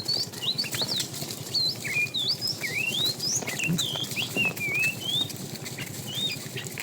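Small birds twittering, with many quick chirps that rise and fall in pitch, over a low, irregular pattering rustle.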